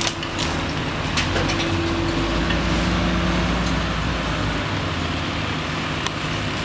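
Diesel engine of a fire engine running steadily as the truck pulls slowly away, its low hum shifting in pitch about halfway through.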